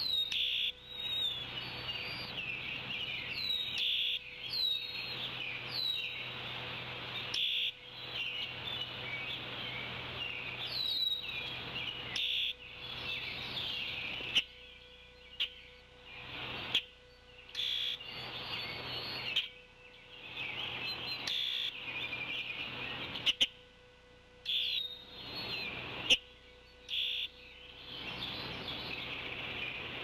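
Songbirds chirping and singing in the surrounding trees: a busy chorus of high-pitched calls, with many short falling chirps. About two-thirds of the way through, an adult bald eagle gives a brief, odd spitting call.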